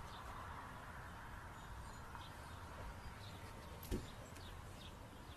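Small birds chirping outdoors: many short, high calls scattered throughout, over a low steady rumble, with a single thump about four seconds in.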